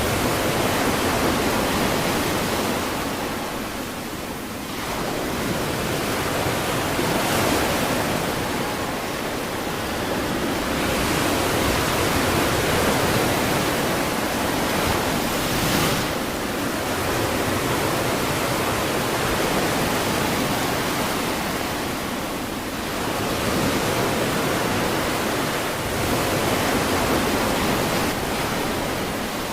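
Ocean surf breaking on a beach: a continuous wash of waves that swells and eases about every six seconds.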